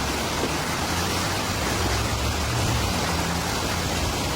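Heavy rain falling, a steady hiss with a low rumble underneath.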